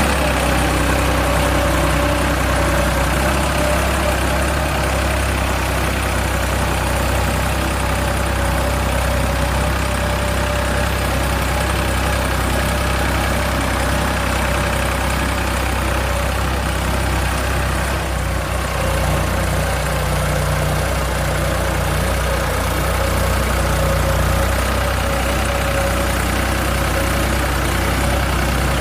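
Engine idling steadily, an even low drone with a constant higher hum on top.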